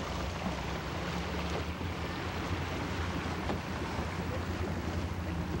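Wind blowing across the microphone, with a steady low hum underneath.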